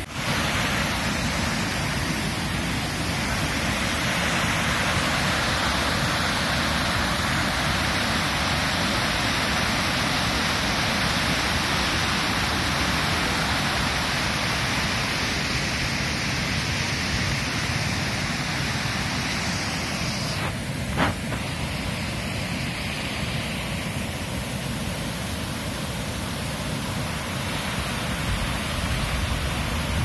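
River water rushing over the low weir at Balmuri Falls in a steady, even rush. The hiss eases off about two-thirds of the way through, where a single sharp click is heard.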